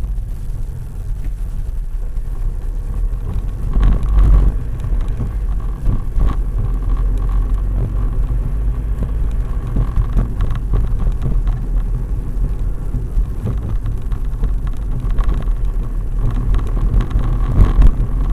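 Car driving along a street, heard from inside the cabin: a steady low engine and road rumble that swells briefly about four seconds in and again near the end.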